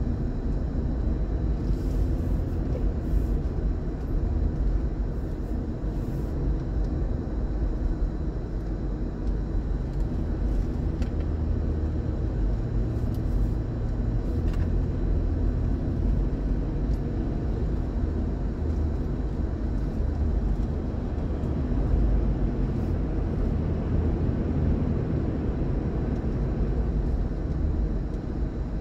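Steady low rumble of a car's tyres and engine on the road, heard from inside the moving car.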